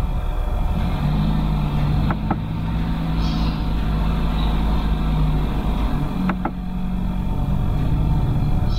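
A steady low drone with held tones that shift now and then, and two quick mouse double-clicks, about two seconds and about six seconds in.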